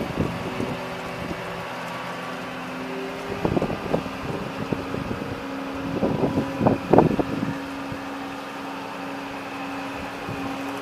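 Wheel loader's diesel engine running with a steady hum, its pitch shifting a little a few seconds in, with a few short clunks partway through and near the middle.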